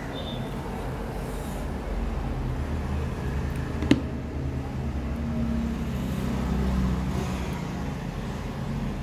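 A low background rumble like passing road traffic, swelling through the middle and easing near the end, with one sharp click about four seconds in.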